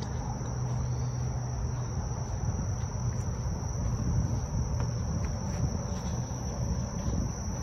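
Insects chirring in a steady high-pitched drone, over a louder low rumble.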